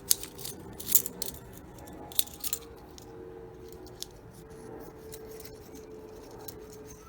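Light metallic clicks of thin jet-cleaning rods being handled and worked into a small-engine carburetor's main jet, a few sharp ticks in the first couple of seconds, then only a faint steady hum.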